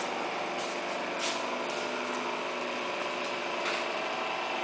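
Riveting machine running with a steady hum, with a sharp click about a second in and another about two and a half seconds later.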